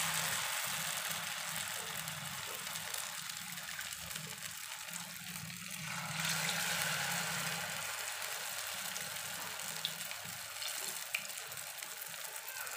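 Hot oil sizzling steadily in a pan as potato pinwheel samosas deep-fry. The sizzle swells about six seconds in, as another piece is lowered into the oil.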